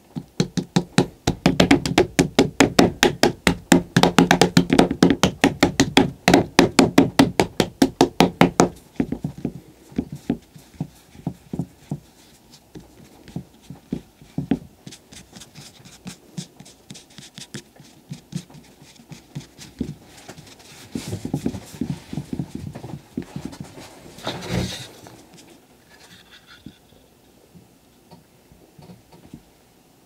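Fingertips rapidly patting a soft clay slab on a wooden board, several pats a second, for about the first nine seconds. Then slower, scattered pats and pressing of the clay, with one louder thump about three-quarters through.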